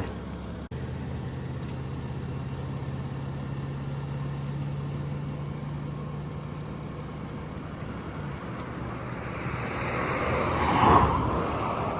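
Pickup truck driving, heard from the cab: a steady low engine hum over road noise. The hum drops about eight seconds in, and a swell of noise builds and peaks near the end.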